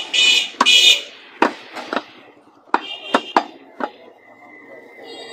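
A large curved cleaver chopping beef on a round wooden stump block: about eight sharp chops at uneven intervals, thinning out after about four seconds. A shrill sound is heard in the background over the first second.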